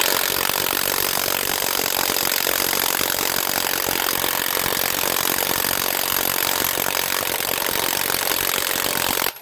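HANS 1/2-inch cordless impact wrench hammering on a wheel lug nut in one continuous run of about nine seconds, starting and stopping abruptly.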